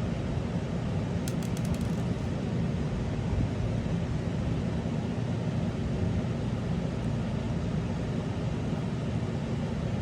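Steady low background hum of room noise, with a few faint light clicks of small parts being handled about a second and a half in.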